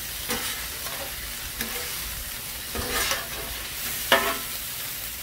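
Chicken fried rice sizzling on a hot flat-top griddle while two metal spatulas scrape and clack across the steel plate, mixing it. There are several short scrapes, and a sharp spatula strike about four seconds in is the loudest.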